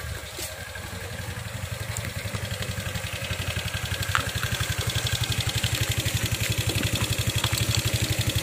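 Motor scooter's small single-cylinder engine idling with an even, rapid putter, growing gradually louder.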